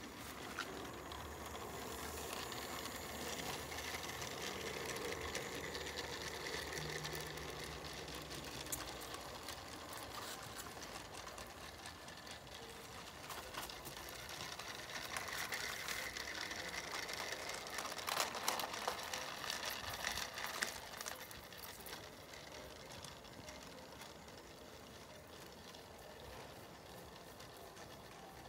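Garden-railway model locomotive running along the track with its train of small wagons: a steady mechanical hum and rattle of motor, wheels and wagons on the rails, with a cluster of sharp clicks about eighteen seconds in.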